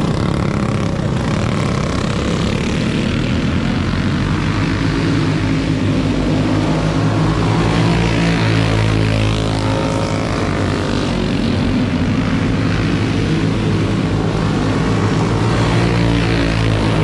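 Several racing go-kart engines running at speed as the pack passes on the dirt track, a buzzing mix of small engines whose pitch rises and falls as karts come by and go away.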